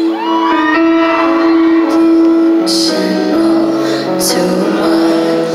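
Loud live concert music over an arena sound system: a held synth chord with singing voices over it, heard from within the crowd.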